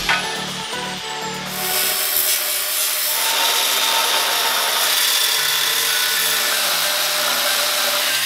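Angle grinder cutting into the rusty steel frame of a truck chassis, a steady, loud grinding with a whine. A single sharp clank of a hammer hitting the concrete floor right at the start.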